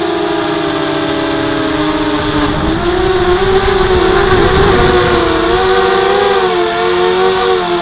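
H4 250 carbon quadcopter's four RCtimer 2300kv brushless motors with 5x3 carbon propellers whining in flight, heard from the onboard camera. The pitch sags slowly, jumps up about two and a half seconds in as the throttle rises, then wobbles up and down with a rush of air noise through the middle.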